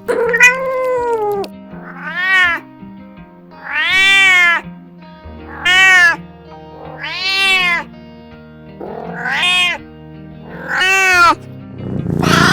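Domestic cat meowing repeatedly, about seven drawn-out meows that each rise and then fall in pitch, over background music.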